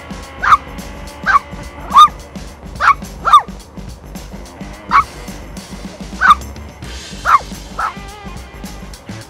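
A dog barking: about nine short, high-pitched barks at uneven intervals, over background music.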